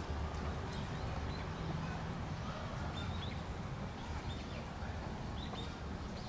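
Steady low background rumble with several short, high bird chirps scattered through.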